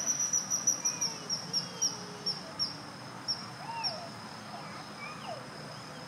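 Common kingfisher giving a run of shrill, high-pitched calls, quick at first, then slowing and petering out about four seconds in.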